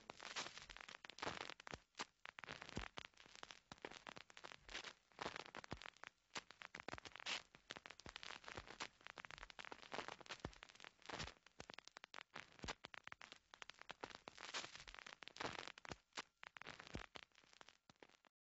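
Faint, irregular crackling and popping that runs on throughout, with no music or voice over it.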